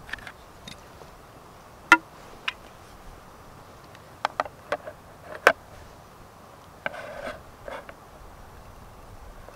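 Clinks and taps of hard-anodised aluminium camping cookware as a pot gripper and pot lid knock against the pot: a handful of sharp metallic clicks, the loudest about five and a half seconds in, with a short scrape about seven seconds in.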